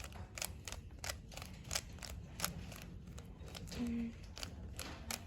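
Plastic Rubik's cube being turned by hand, its layers clicking in quick, uneven bursts of several clicks a second as the last layer is finished.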